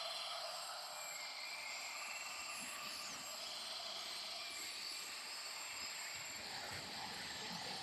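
A steady jungle-style ambience sound effect: a dense, even hiss with many short, high chirps scattered through it and little low end.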